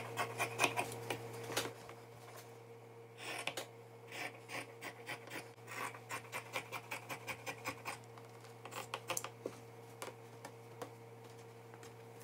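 Fabric scissors cutting through cotton fabric: quick runs of crisp snips, several a second, broken by short pauses as the blades are repositioned along the cutting line.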